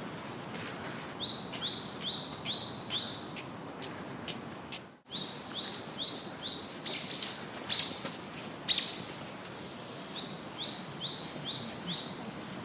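A bird calling over a steady outdoor background hiss: three runs of four or five short, high chirps at about three a second, with two louder sharp chirps in the middle. The sound cuts out briefly about five seconds in.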